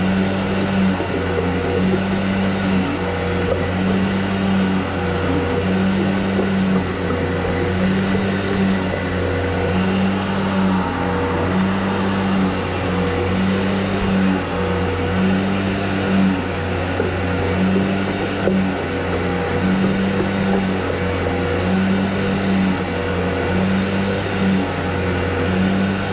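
Motorised drain-cleaning machine running steadily under load, a continuous hum with a tone that swells and fades about every one and a half seconds.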